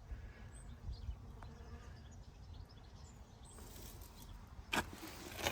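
Faint outdoor background with a low rumble of wind on the microphone, then two brief sharp handling noises near the end.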